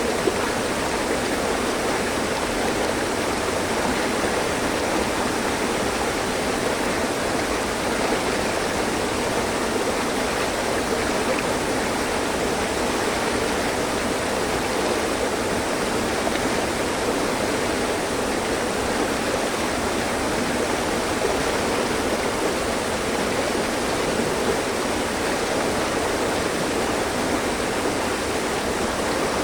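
Mountain stream running over rocks: a steady, even rush of flowing water.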